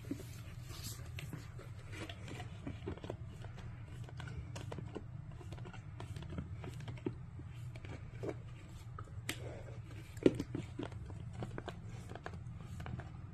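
Great Pyrenees gnawing at a snack cup held between its paws: irregular crunching and crinkling, with one louder crack about ten seconds in, over a steady low hum.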